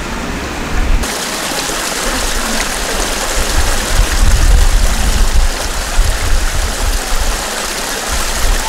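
Flood water from a burst water main rushing along the kerb and pouring through a roadside storm-drain grating: a steady splashing rush that starts abruptly about a second in, over an uneven low rumble.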